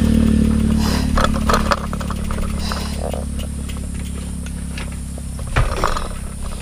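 A motor vehicle engine running with a steady low hum that eases down after about two seconds, with scattered clicks and rattles and a louder knock near the end.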